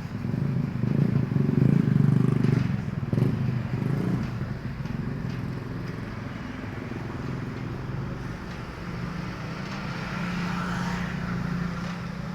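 Electric gate opener motor running with a steady low hum, louder for the first few seconds, as a remote-controlled gate is driven.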